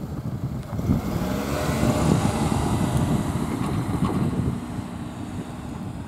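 A motor vehicle passing close by on the road: engine and tyre noise swells about a second in and eases off after about four seconds.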